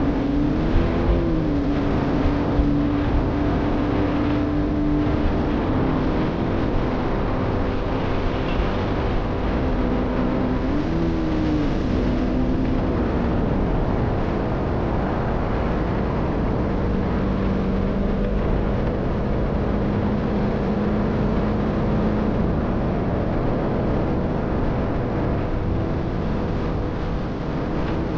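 Single-cylinder 200 cc sport motorcycle engine running at speed under heavy wind rush on the microphone. Its pitch rises and falls back about a second in and again about eleven seconds in, then holds lower for a while past the middle.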